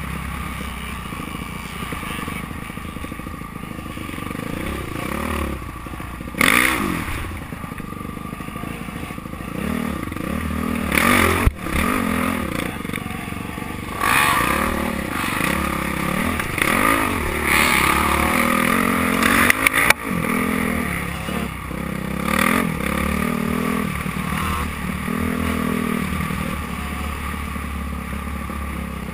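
Dirt bike engine heard close up from the bike itself, its revs rising and falling over and over as it is ridden hard along a rough trail. Several sharp knocks and clattering jolts come through, the loudest about eleven seconds in and again near twenty seconds.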